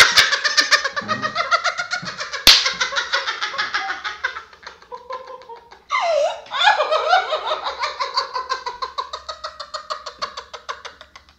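A man and a woman laughing hard together in a long, fast, high-pitched run of laughter that breaks off about six seconds in, starts again with a loud burst, and fades near the end. A single sharp knock about two and a half seconds in.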